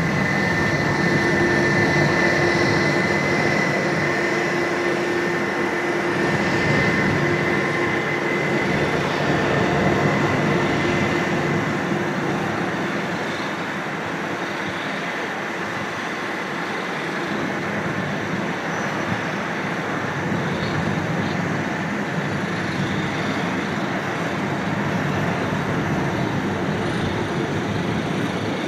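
Airbus A320 jet engines heard from a distance on final approach and landing: a steady rumbling noise with a high whine and a lower hum from the engines that fade out about halfway through, as the airliner flares, touches down and rolls out on the runway.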